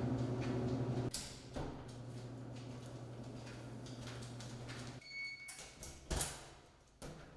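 A steady electrical appliance hum, dropping in level with a click about a second in and stopping at about five seconds. A short high beep follows, then a few sharp knocks and clunks, the loudest about a second later.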